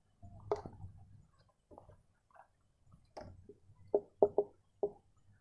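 Faint short squeaks and scratches of a marker writing on a whiteboard, with four quick strokes in a row near the end.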